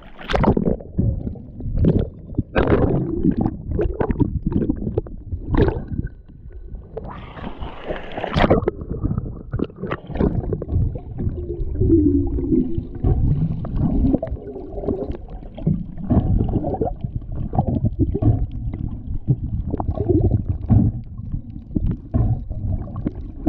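Water splashing and sloshing over a GoPro camera as a freediver ducks under from the surface. After about ten seconds it turns into a muffled underwater rumble and gurgling of water and air bubbles against the submerged camera.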